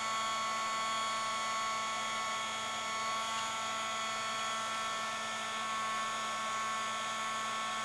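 Handheld craft heat gun running steadily, its fan motor giving a constant whine with a rushing of hot air. The heat is softening cardstock petals so they curl without creasing.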